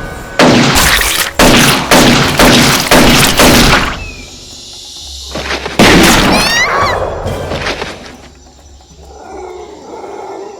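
A rapid run of six loud, heavy impact sound effects about half a second apart, then another hit a couple of seconds later trailed by quick falling chirps, over background music.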